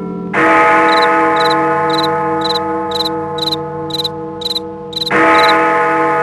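A large bell struck twice, about five seconds apart, each strike ringing out with a slow decay and a wavering hum, over crickets chirping about twice a second.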